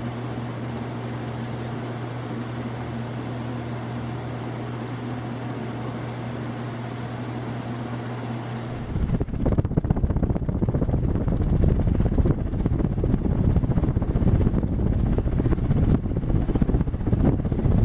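Dayton (Marley) Leading Edge 48-inch commercial ceiling fan running with a steady motor hum and the whoosh of its blades. About nine seconds in, the sound changes abruptly to loud, gusty rumbling of the fan's airflow buffeting the microphone.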